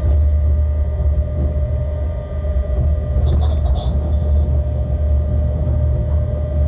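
Locomotive cab while moving at shunting speed: a steady low rumble of running gear on the rails under a steady hum, with a brief higher-pitched noise about three seconds in.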